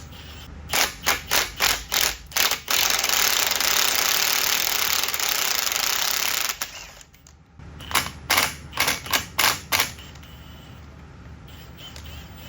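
Metal tool work on a 14-bolt axle housing: two runs of sharp, evenly spaced metal strikes, about four a second, and between them about four seconds of steady loud noise that cuts off suddenly.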